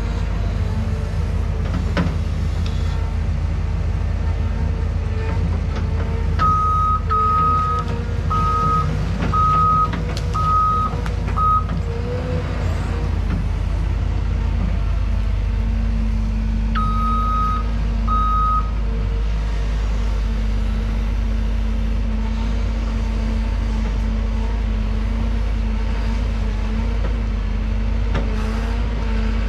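Cat excavator's diesel engine running steadily, with its warning alarm sounding a run of about six evenly spaced beeps about a fifth of the way in and two more near the middle, as the machine moves. A few knocks sound over the engine.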